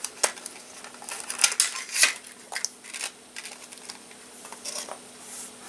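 Small retail package being opened and the trigger connector handled: irregular crinkles and light clicks, over a faint steady hum.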